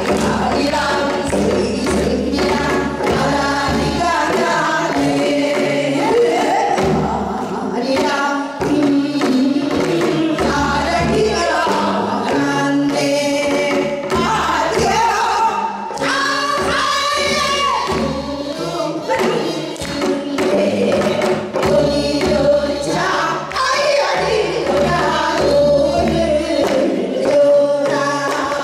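Korean traditional singing (gugak): several women's voices singing together into microphones, with traditional Korean instruments accompanying underneath.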